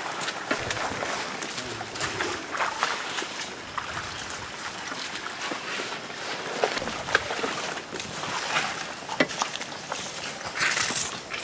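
Rustling leaves and branches with scattered cracks, snaps and creaks as a riding elephant walks through jungle undergrowth, with a brief louder rustle near the end.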